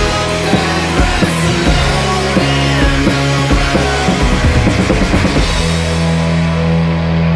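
Psychedelic rock band playing: electric guitars over a drum kit, the drums breaking into a quick run of hits that stops about five and a half seconds in, leaving the guitars ringing on a held chord.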